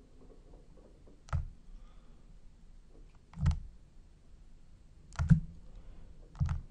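Four separate computer mouse clicks, spaced one to two seconds apart, over faint room noise.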